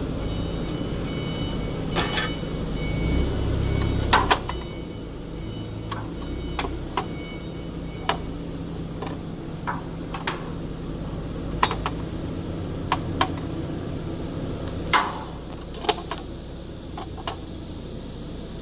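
Scattered sharp metallic knocks and clicks, about fifteen of them at irregular intervals, as tools and parts are handled while the covers of a band saw cutting machine are removed to fit the blade. A steady low hum runs underneath.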